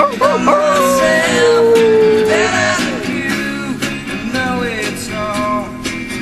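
Background music: a country-style song with guitar and a singing voice, which holds one long, slowly falling note about a second in.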